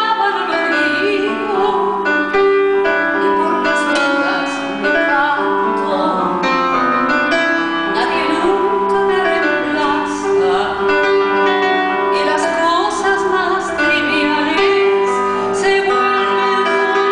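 A woman singing a slow song with held, wavering notes, over piano accompaniment.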